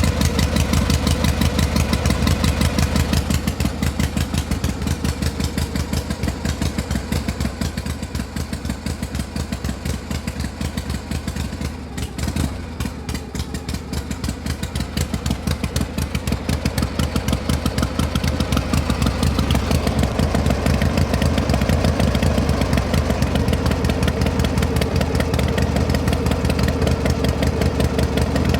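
Combustion engine running with a rapid, even firing beat. It eases off a few seconds in, drops out briefly near the middle, then comes back louder for the last third.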